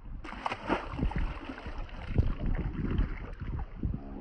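Water slapping and splashing against a small boat's hull, with irregular knocks and wind on the microphone.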